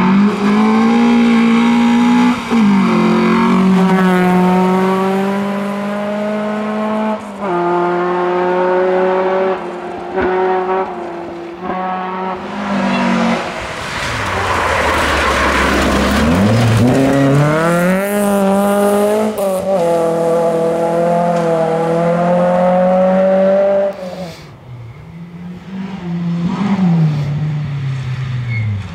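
Rally cars on a gravel special stage driven hard past the spectators, one after another: engines held at high revs, the pitch stepping down and back up with gear changes and lift-offs. Midway a rushing spray of gravel and tyre noise comes as one car slides past close, then its engine winds back up.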